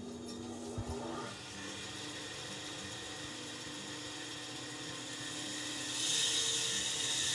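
Pegas scroll bandsaw with a half-millimetre blade cutting a thick block of wood: a steady saw hiss that grows louder about six seconds in and then cuts off suddenly.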